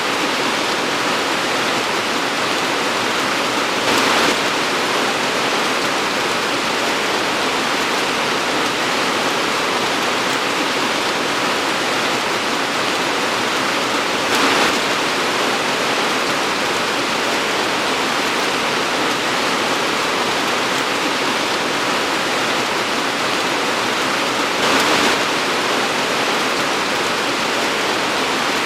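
Torrential rain pouring down in a steady, dense hiss, with three brief louder swells about ten seconds apart.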